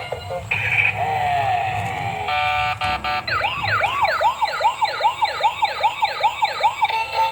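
Electronic toy siren sound: a few synthetic beeps and tones, then from about three seconds in a fast wailing siren rising and falling about three times a second.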